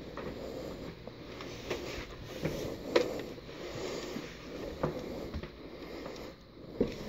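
Scattered soft knocks and thumps over faint rustling, the sharpest knock about three seconds in.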